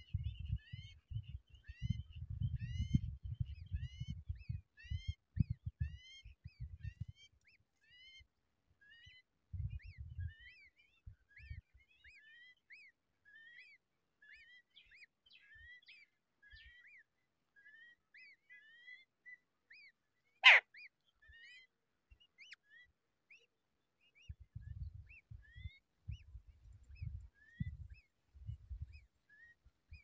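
Small birds chirping, short repeated calls a few a second, busiest at the start and thinning out later. Low rumbling thumps come and go, and a single sharp loud click sounds about twenty seconds in.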